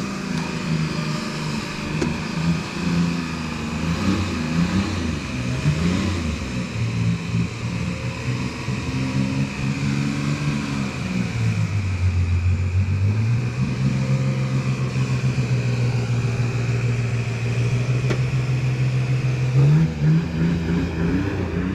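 An engine running, its pitch wandering up and down. It dips lowest about eleven seconds in, holds steady for several seconds, then rises again near the end.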